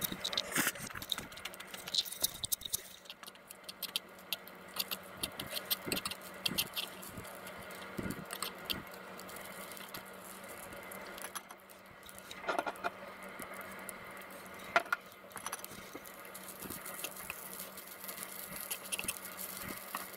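Metal fork and chopsticks scraping and tapping against a frying pan while stirring fried rice: irregular clicks and scrapes over a steady hiss, busiest in the first few seconds, with one sharper click about fifteen seconds in.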